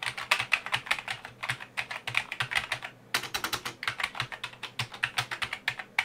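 Typing on a Compaq RT101 keyboard: a rapid, uneven run of key clacks, with a short pause about halfway through.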